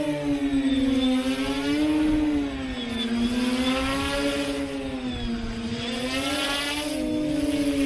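Propeller motors of a tailsitter drone hovering, a steady buzzing whine whose pitch wavers up and down as the throttle keeps correcting, with a low rumble of wind on the microphone underneath.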